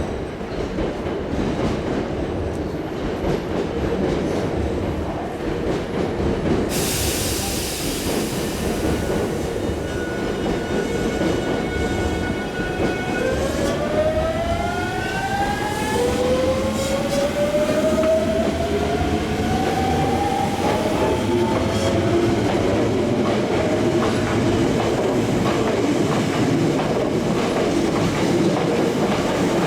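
Hankyu 8000 series electric train pulling out of a station: a burst of air hiss about seven seconds in, then the traction motor and inverter whine. It holds steady at first, then from about thirteen seconds rises in several climbing tones as the train gathers speed, over the rumble of wheels on rail.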